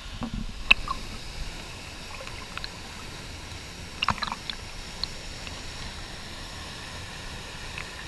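Steady rush of a waterfall and its plunge pool, with water splashing and slapping close by a few times, sharpest about a second in and again about halfway through.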